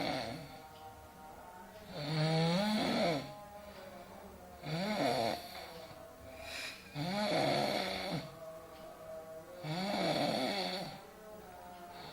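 A person snoring loudly and rhythmically, five snores about two and a half seconds apart, each one bending in pitch, over quiet background music.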